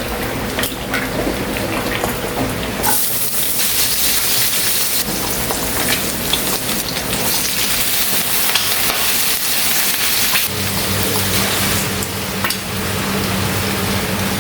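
Food frying in hot oil: a steady sizzle that suddenly grows louder and brighter about three seconds in. A low steady hum joins it later on.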